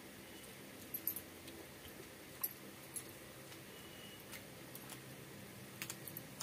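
Scattered light clinks and clicks of bangles and fingers as rice is mixed and eaten by hand off a banana leaf, a few single ticks and then a quick cluster near the end, over a low steady hum.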